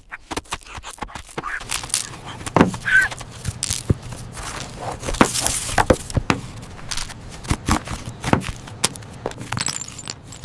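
Crunching and crackling: many sharp cracks, scrapes and crinkles coming quickly and irregularly, like material being crushed and torn.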